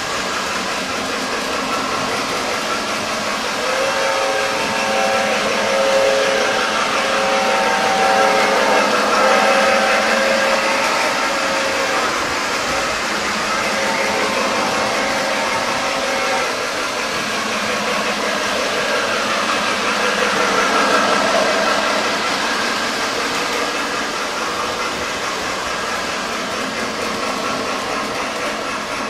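Several Lionel O-gauge toy trains running on tubular track: a steady rumbling clatter of wheels and motors. From about four seconds in to about sixteen seconds in, a locomotive's horn sounds a chord in a run of repeated short and long blasts.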